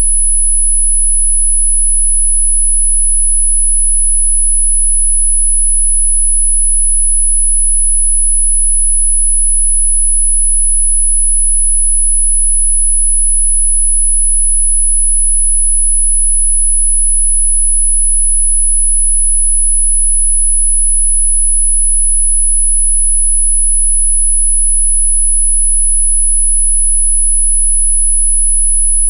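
A steady, very high-pitched pure sine tone held at one pitch without a break, played as a 'healing frequency' meant to cure hiccups, with a faint low hum beneath it.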